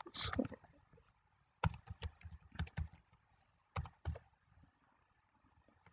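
Computer keyboard keystrokes: a few clicks at the start, a quick run of about eight keys in the middle, and two more about two seconds later, with quiet in between.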